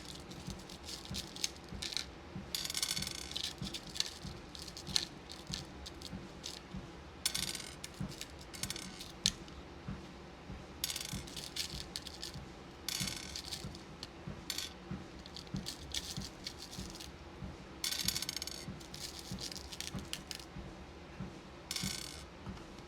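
Beads rattling and clicking together in irregular bursts, a second or two apart, as they are handled and sorted, with soft regular low thuds underneath.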